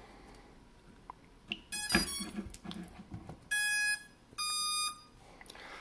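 Small FPV quadcopter's ESCs sounding their power-up tones through the brushless motors as the LiPo is connected through a smoke tester: a click and a short burst of tone about two seconds in, then two clear beeps, the second higher than the first. This is the normal startup sequence, a sign that the newly built drone has powered up without a short.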